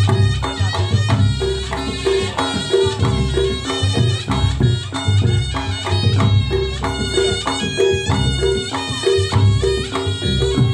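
Reog Ponorogo gamelan music accompanying the jathil dance: a slompret (Javanese shawm) plays a nasal, reedy melody over steady drumming and gong-chime strikes.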